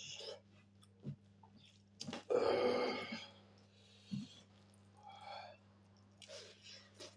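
Close-miked chewing of pork and rice: short wet clicks and smacks, with one loud burp lasting about a second, a little over two seconds in.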